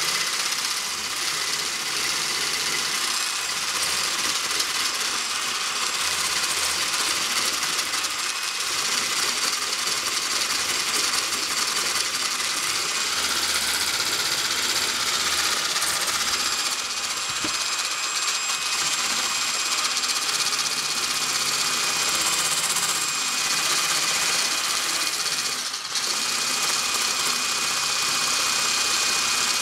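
Electric kitchen mixer running steadily, with a high whine and a light rattle, dipping briefly once near the end.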